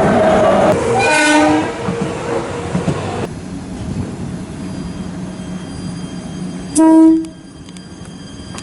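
Train horns over the running noise of a train: a held horn note ends just after the start, a short horn blast sounds about a second in, and a short, loud blast comes about seven seconds in.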